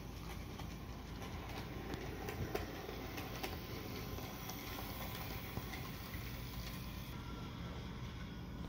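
Bachmann Thoroughbred HO scale model train running on its track: a steady running noise with scattered faint clicks of the wheels over the rails.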